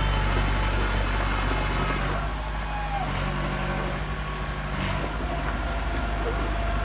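Heavy machine's engine running steadily, easing off slightly in the middle and picking up again.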